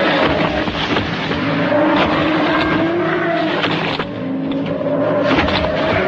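Dinosaur sound effect from a 1960s monster-film soundtrack: long drawn-out screeching calls, each rising and falling in pitch over about two seconds, three in a row, over a rough rumbling bed with a few sharp knocks.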